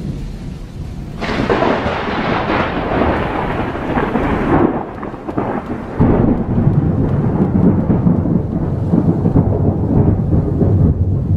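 Thunder sound effect: a sharp thunderclap cracks about a second in and rolls away, then a second, deeper rumble of thunder starts suddenly about six seconds in and keeps rolling.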